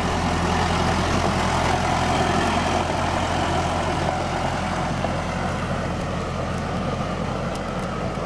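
LS XR4040 compact diesel tractor running steadily as it drives past and on away over gravel, its engine sound easing slightly toward the end.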